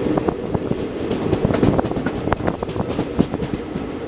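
Passenger train coach in motion, heard from its open door: a steady running rumble with the wheels clattering over the track in many sharp clicks and knocks, thickest in the middle.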